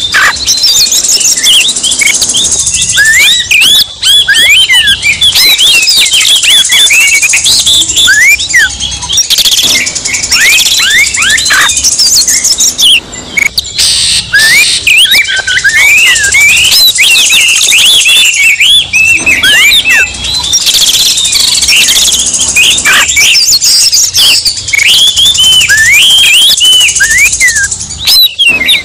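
Oriental magpie-robins singing a combination of agitated, fired-up songs: a dense, fast, varied stream of whistles, sweeping notes and chattering, pausing briefly about halfway through.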